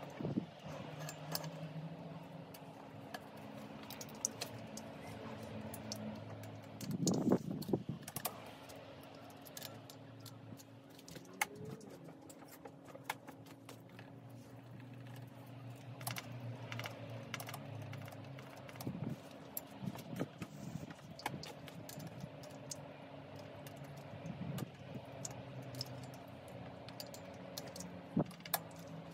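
Small metal clicks and clinks of a hex key and cantilever brake hardware being handled as the brake cable is clamped and tightened, scattered and irregular, with a louder bout of handling about seven seconds in. A steady low hum runs underneath.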